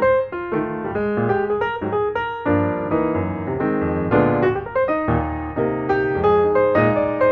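Background piano music, fast runs of notes over low bass notes, on an electric or keyboard piano.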